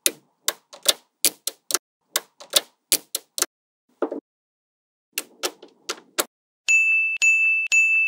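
Small magnetic balls clicking sharply as they snap together, a dozen or so irregular clicks with a short pause partway through. Near the end a bright ding sounds three times in quick succession, the last one ringing on.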